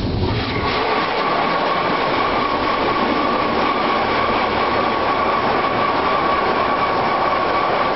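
Automatic car wash spraying water onto a pickup truck, heard from inside the cab: a loud, steady rushing hiss of water hitting the glass and body, with a thin steady whine running through it.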